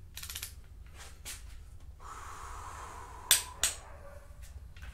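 Click-type torque wrench ratcheting briefly, then being pulled on a VR6 cylinder head bolt until it gives two sharp clicks about a third of a second apart, a little over three seconds in. The clicks are the wrench breaking over as the bolt reaches its set torque.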